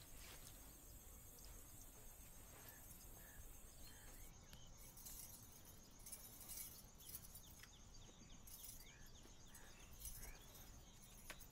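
Faint ambience of insects chirping, with a thin high steady trill and small repeated chirps.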